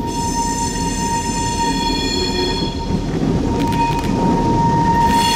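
Norfolk Southern diesel locomotive rolling through a curve: a steady rumble from the engine and wheels, with a high ringing squeal from the wheel flanges grinding against the curved rail. The squeal fades about two and a half seconds in and returns a second later.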